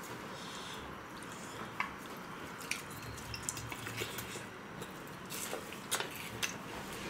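Eating at a table: scattered light clicks of chopsticks and a spoon against plates and bowls, over a low steady room hiss.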